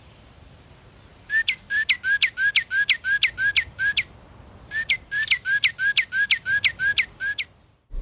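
Recorded northern cardinal song played back. There are two phrases of rapid, repeated downslurred whistles, about four a second, each phrase nearly three seconds long with a short pause between. The song has the 'laser gun' quality typical of the species.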